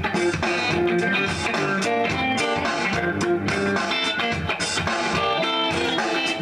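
Red hollow-body electric guitar being played, a continuous run of picked notes.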